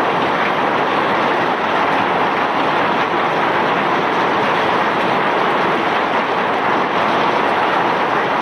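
Self-unloading barge's unloading gear running with a loud, steady rushing noise as bulk iron ore and river rock are discharged.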